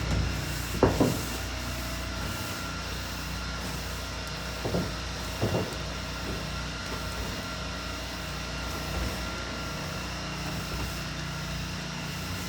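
Steady engine hum, the kind of drone a pressure-washing rig's engine makes while it runs, with a few brief knocks about a second in and again around five seconds in.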